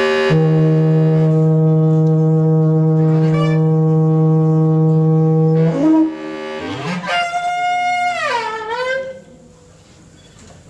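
Conch shell blown alongside a bass clarinet in free improvisation: a long steady low note held for about five seconds, then a glide up into a higher note that bends down and wavers before dying away near the end.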